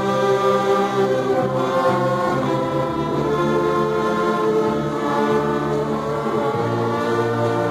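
Church orchestra playing a hymn in slow, held chords, with the brass carrying the melody.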